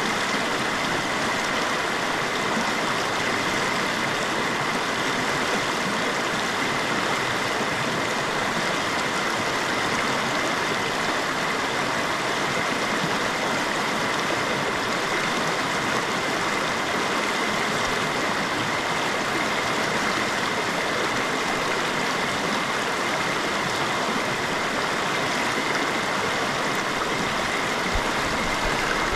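Shallow rocky river running over stones in a riffle: a steady rush of water that stays even throughout.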